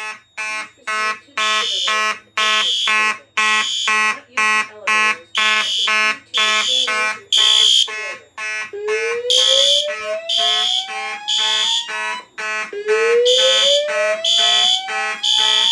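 Fire alarm horns sounding in alarm: a Simplex 2901-9838 mechanical horn pulsing rapidly in march time, overlaid by a System Sensor P2W horn-strobe in groups of three. About nine seconds in, the Notifier DVC voice panel's slow whoop tone joins, rising in pitch twice.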